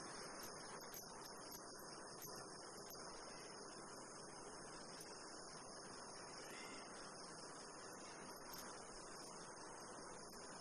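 Near silence with a faint, steady high-pitched chirring of crickets.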